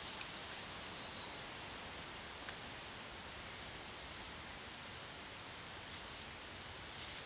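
Outdoor riverside ambience: a steady background hiss with a thin, continuous high insect buzz, and a few short, high bird chirps, the loudest near the end.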